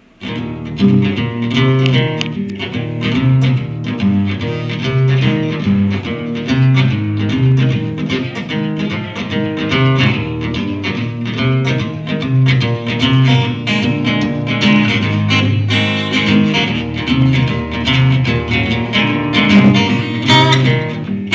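Acoustic guitar played solo, an instrumental of many quickly picked notes starting abruptly, amplified through PA speakers.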